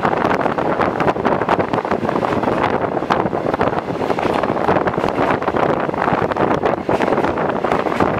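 Wind buffeting a microphone held out of a moving passenger train's window, over the steady running noise of the coach on the track.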